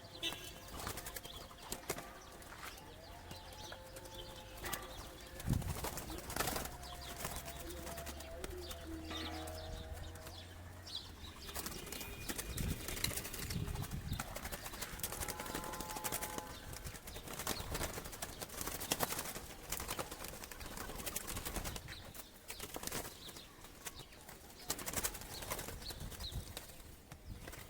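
Trapped doves flapping their wings, with scattered knocks and rustles throughout and a few soft coos.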